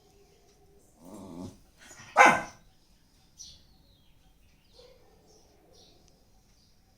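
A dog makes a short, low, wavering sound about a second in, then gives one loud bark. A few faint high chirps follow.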